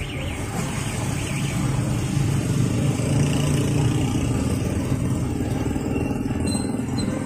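Steady low engine rumble, swelling slightly in the middle.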